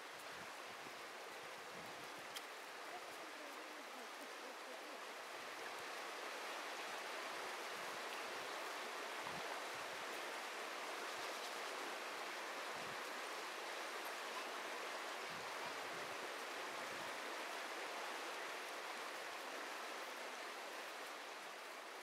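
River water flowing steadily over shallow riffles, a continuous rushing hiss that grows a little louder about six seconds in.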